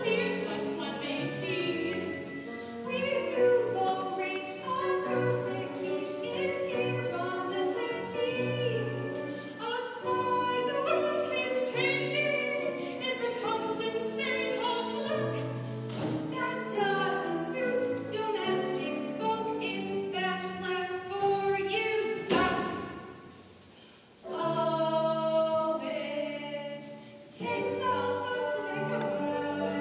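A group of high-school voices sings a musical-theatre chorus number. The singing breaks off briefly about three quarters of the way through, then picks up again.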